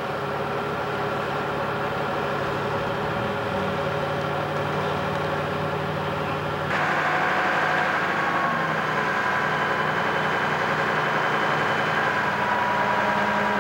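An engine idling steadily, its tone changing abruptly about seven seconds in.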